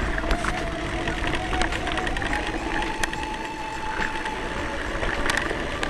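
Mountain bikes rolling over a rough dirt and gravel track: tyres crunching, with frequent rattling clicks and knocks from the bikes and loose stones under a low rumble. A thin steady whine runs through it and rises slightly in pitch about halfway.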